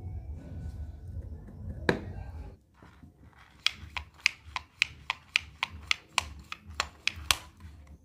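Hands working a Mahindra Bolero starter motor's greased planetary gear housing: a low rubbing rumble with a single sharp click, then a run of sharp, evenly spaced metallic clicks, nearly four a second, in the second half.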